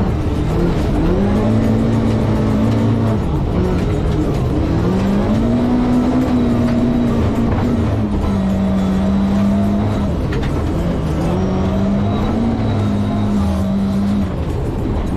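Rally car engine heard from inside the cabin at full stage pace. The revs climb and hold, then drop away and climb again, four times over, with a steady rumble of tyre and road noise beneath.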